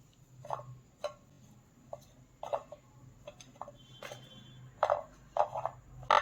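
Crisp fried nimki crackers being set out on a plate: scattered light clicks and crackly taps at irregular intervals.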